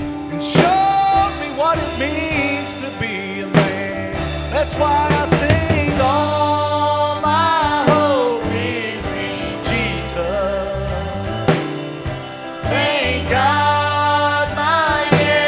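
Live Christian worship band playing: a man singing lead with backing voices, over acoustic guitar, electric guitar and a drum kit.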